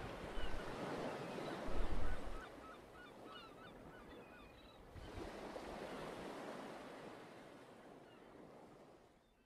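Sound-effect ocean surf washing on a beach, with a quick run of short bird calls about two seconds in. The surf swells again about halfway and then fades out.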